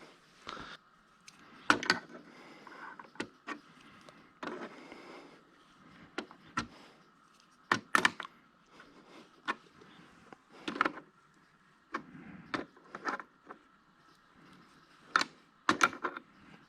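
Irregular metal clinks, taps and knocks, with short scrapes between them, as a sprocket hub and tools are handled and the hub is clamped in a milling machine vise.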